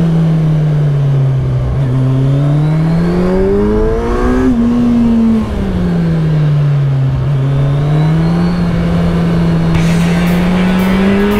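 Kawasaki Z1000SX inline-four motorcycle engine at riding speed, revving up through a bend and easing off. Its pitch rises for about two seconds, falls away about five seconds in, holds steady, then rises again near the end.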